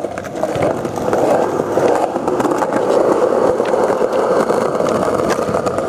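Skateboard rolling along on hard ground: a steady rumble of the wheels, with a few light knocks.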